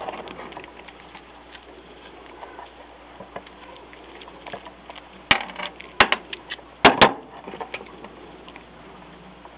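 Small metal parts of a homemade cylinder puller clicking and clinking against a Kwikset doorknob lock as the tool is fitted and worked. Faint scattered ticks, then a cluster of sharp clicks about five to seven seconds in.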